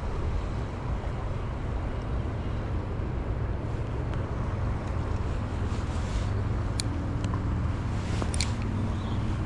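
Steady rushing of river water, with a few faint ticks about two-thirds of the way through.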